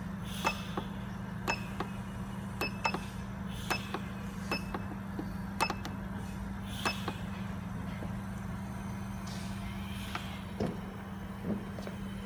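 Oxygen concentrator's compressor running with a steady low hum. Its control-panel buttons are pressed over and over as the flow setting is stepped up, each press a sharp click with a short high beep, coming quickly in the first seven seconds. A soft hiss recurs about every three seconds, and two duller knocks come near the end.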